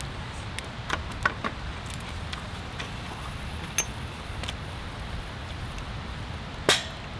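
Small liquor glasses and a glass bottle tapping and clinking as soju is poured and a toast is made, a handful of short sharp clicks, one with a brief high ring a little before halfway. A sharp knock near the end is the loudest sound, over a steady low background rumble.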